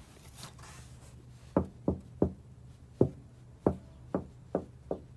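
Knocking on the rebuilt rear fender of a 1987 Toyota pickup, whose bodywork is patched with Bondo: about eight short, sharp knocks at irregular spacing, starting about a second and a half in.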